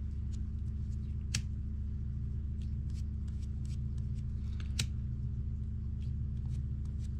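A steady low electrical hum under light handling noise: faint ticks and rustles of fingers working nylon paracord and a disposable lighter, with two sharper clicks, one about a second and a half in and one near five seconds in.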